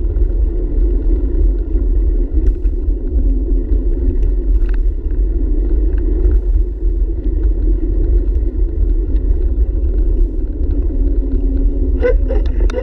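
Steady low rumble of wind buffeting the microphone and bicycle tyres rolling on a paved trail, picked up by a camera mounted on the handlebars while riding.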